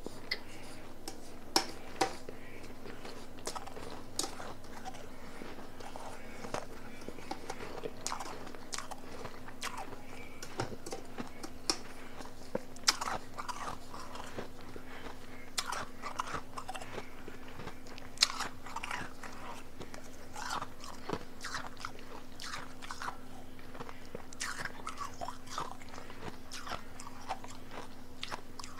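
Close-up crunching and chewing of powdery crushed ice, with a metal spoon scooping and scraping through the ice in a plastic blender cup. The crunching is an irregular stream of crackles with a few sharper clicks standing out, over a faint steady hum.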